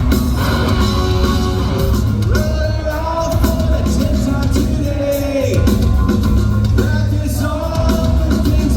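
A rock band playing live at full volume, with heavy bass and drums under a sung vocal line whose held notes fall in pitch at their ends.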